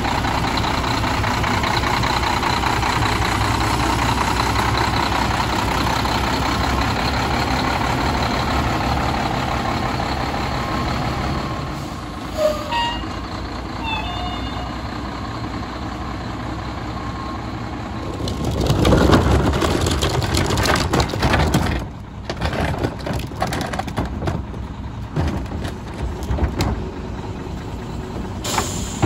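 Diesel engine of a Volvo WXLL garbage truck running steadily as it pulls past close by. Later comes a loud rushing burst that cuts off suddenly, then scattered knocks and rattles as a green-waste cart is tipped into the Heil 5000 rear loader's hopper.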